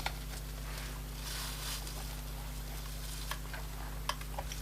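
A spudger prying at the edge of an iPad 2's cracked digitizer glass: a few faint clicks and a brief scraping rustle, over a steady low electrical hum.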